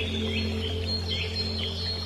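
A bird calling in a series of short, high chirps over background music with sustained low notes.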